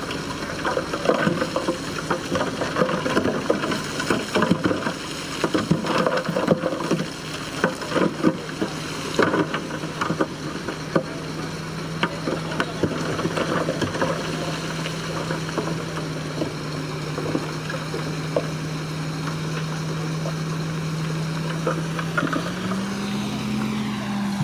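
Bulldozer working, its diesel engine running under a steady tone, with many sharp crackles and clanks over the first half; the engine revs up near the end.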